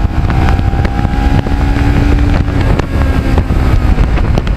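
Kawasaki Ninja 650R parallel-twin engine running at road speed with a steady engine note, under heavy wind rush on the microphone.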